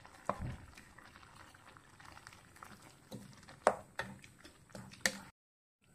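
Wooden spatula knocking and scraping as thick ground coconut paste is tipped from a steel mixer jar into a pan of curry, over the soft bubbling of the curry simmering on low heat. Three sharp knocks, the loudest past the middle; the sound cuts off suddenly just before the end.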